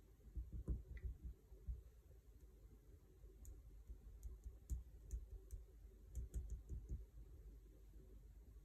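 A scatter of faint small clicks and taps as the tip of a liquid glue bottle dabs little dots of glue onto a thin die-cut paper outline, with soft handling bumps underneath.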